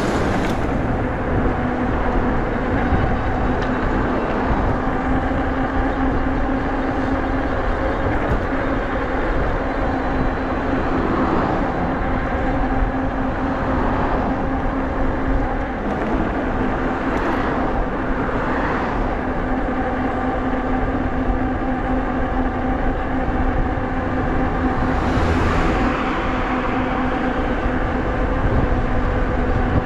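Nakto F6 electric fat bike cruising at about 20 mph: a steady hum from the bike with rumbling wind on the microphone, and cars swishing past several times, the clearest near the end.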